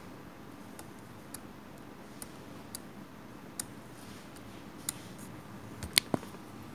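Faint, irregular clicks and ticks over a low steady hiss, with two sharper clicks close together near the end.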